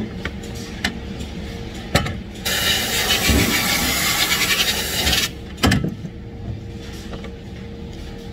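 Compressed-air spray gun with a gravity-feed cup hissing in one steady burst of about three seconds, starting and stopping abruptly, with a sharp knock just before and just after. A steady machine hum and a low rumble run beneath it.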